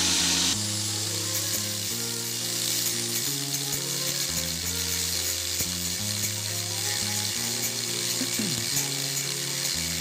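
Background music with steady, changing chords, over the high whine of an angle grinder cutting through the steel pins that hold a washing-machine motor's housing together.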